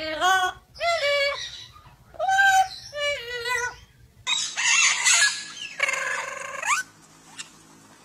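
Amazon parrot vocalizing in a run of short, pitched, voice-like phrases for about four seconds. It is followed by a harsher, noisier sound with a rising glide near the end.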